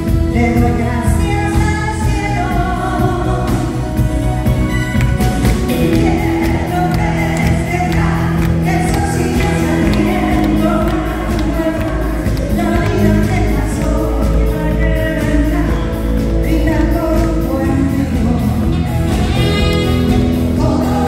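A woman singing a Spanish-language pop song live into a microphone, backed by a band of keyboards, electric guitars and drums with a steady beat.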